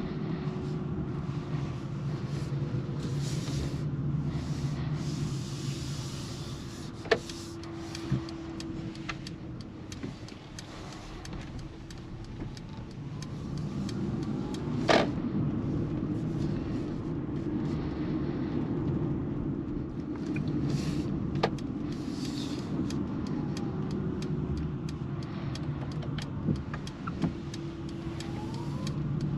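Inside the cabin of a Mercedes EQB 350 4MATIC electric SUV driving at low speed: steady tyre and road noise with a faint electric-motor hum that drops in pitch about a third of the way in as the car slows and then rises again. A few sharp clicks or knocks come through, the loudest about halfway, and a rising whine near the end as it speeds up.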